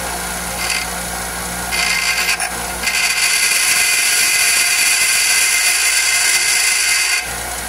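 Bench grinder running as a new steel wheel stud is held against its wheel to grind a small flat spot on the stud's head. The grinding gets louder from about three seconds in and dies down near the end.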